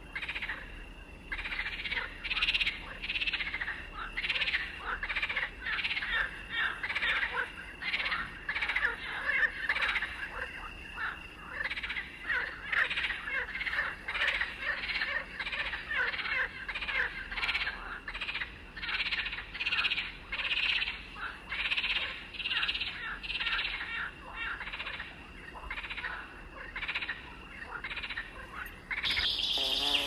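A dense chorus of many overlapping animal calls, several a second, going on steadily.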